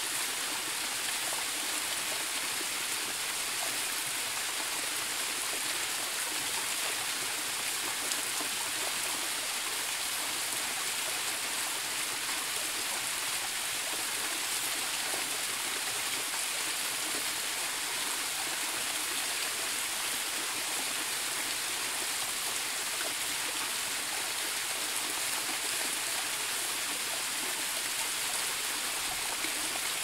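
Water from a small waterfall cascading over a rock face: a steady, bright rushing hiss that does not change.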